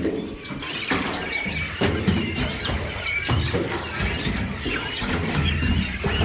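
A crowd of waterbirds squealing and calling over one another in many short, high, overlapping cries, with a low rumble underneath.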